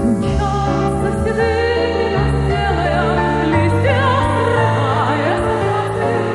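A female singer in a classical style with wide vibrato, accompanied by piano.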